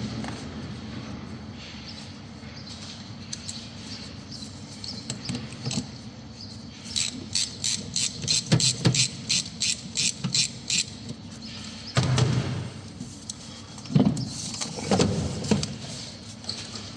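Hand tools working in a car's engine bay: a run of evenly spaced ratchet clicks, about three a second, for roughly four seconds in the middle, then a few knocks and clunks as parts are handled.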